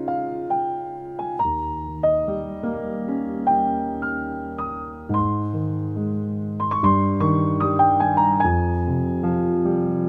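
Background music: a piano playing a melody of struck notes over chords.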